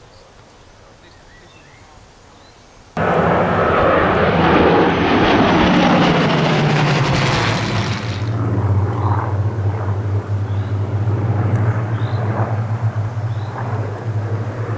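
Piston-engined Spitfire and two Hurricanes flying past in a low formation flypast. The sound comes in suddenly about three seconds in, loud, with the engine note dropping in pitch as they pass. It then settles to a steady low drone as they fly away.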